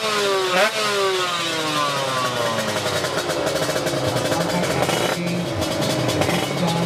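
Two-stroke Kawasaki Ninja drag-bike engine at the start line: blipped sharply twice in the first second, the revs then falling away slowly, before it settles into a steady, warbling high idle.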